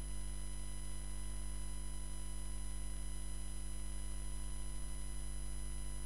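Steady low electrical hum with a stack of higher tones above it, unchanging throughout; no handling sounds stand out.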